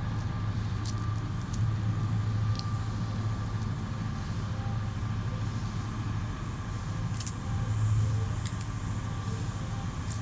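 150 kW generator's engine running steadily under a load test, with a deep hum and a faint steady whine, broken by a few sharp clicks and crackles.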